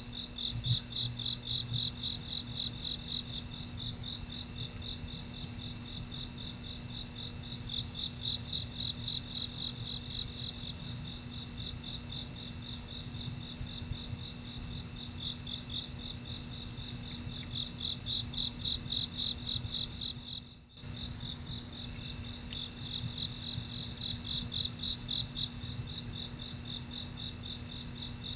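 Night-time chorus of crickets: one steady high trill, with a second insect call of rapid pulses that swells and fades in waves over it. A faint steady low hum sits underneath, and everything drops out briefly about twenty seconds in.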